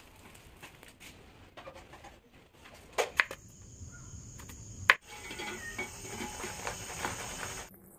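A run of short everyday sounds: faint outdoor ambience with birds, then a few sharp strokes of a large knife slicing potato on a wooden board, then the steady hiss of food cooking in a clay pot over a wood fire, which cuts off abruptly near the end.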